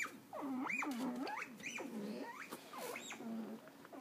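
Patagonian cavy (mara) calling over and over: a quick run of about five or six squeaky calls, each sliding steeply up in pitch and dropping back.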